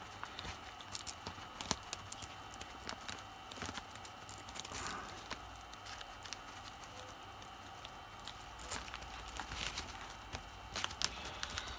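Handling noise from fingers moulding polymorph plastic around a stunt kite's spar joint: scattered small clicks and crinkling, with the kite fabric rustling.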